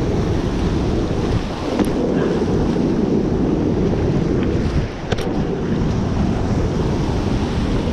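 Steady rush of river rapids mixed with wind buffeting the microphone, heaviest in the low end. Two light clicks come about two and five seconds in.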